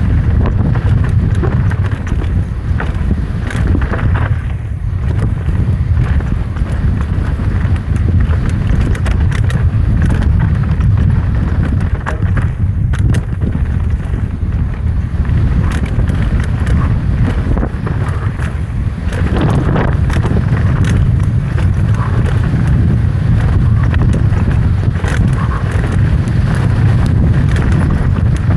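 Wind buffeting the microphone during a fast descent on an electric mountain bike, with the bike rattling and knocking over rough ground the whole way.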